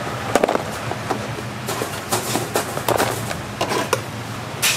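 Glazed fried chicken being packed into paperboard takeaway boxes: scattered short clicks, taps and rustles at irregular intervals, the sharpest one near the end, over a steady low hum.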